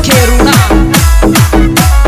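Instrumental passage of a Rajasthani folk-pop song: a steady electronic beat of deep drum hits that fall in pitch, about two a second, under sustained keyboard tones, with no singing.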